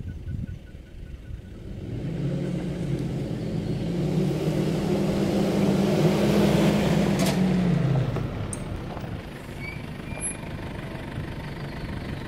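Mitsubishi four-wheel-drive SUV driving on a dirt track, its engine and tyres growing louder as it approaches and passes close by about seven to eight seconds in, then dropping to a lower steady running sound.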